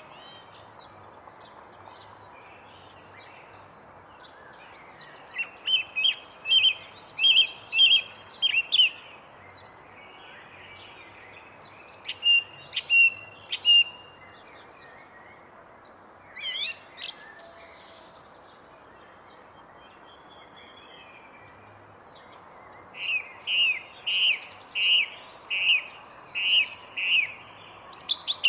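A songbird singing short phrases of rapidly repeated chirping notes, four phrases with pauses of a few seconds between them, over a steady background hiss.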